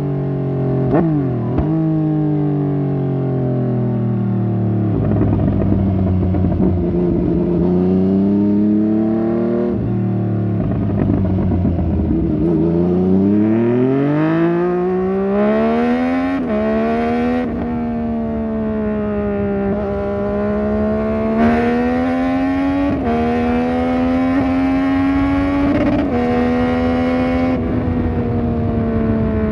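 Yamaha MT-09 Tracer's three-cylinder engine breathing through an aftermarket Fuse Racing exhaust while riding. The engine note rises and falls through the gears, climbs hard about halfway through with two quick shifts, then holds a fairly steady pitch with small throttle changes.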